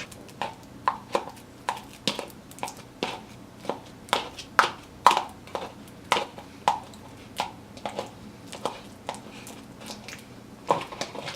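A utensil mashing a banana in a bowl, knocking against the bowl in irregular short clicks about twice a second, some with a brief ring.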